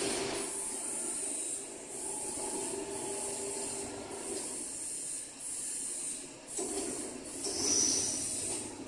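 Drive of a stainless-steel V blender running as its V-shaped mixing body rotates: a steady motor hum with a high hiss over it, turning rougher about two-thirds of the way through.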